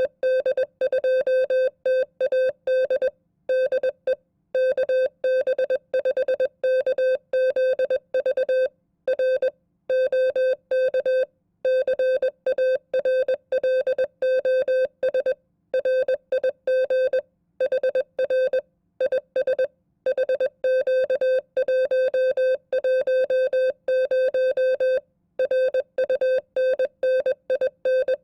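Morse code (CW) sent at 20 words per minute as a single steady mid-pitched tone keyed on and off in dots and dashes. It carries a sample amateur radio contact (QSO) sent as a Morse copying test.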